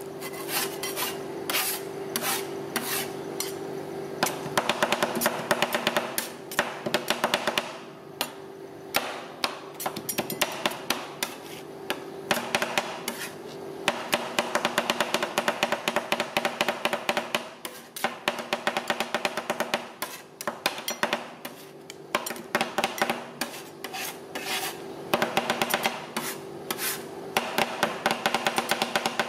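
Two metal spatulas chopping and scraping ice cream on a stainless-steel cold plate: rapid runs of clacking taps with short pauses, over a steady hum.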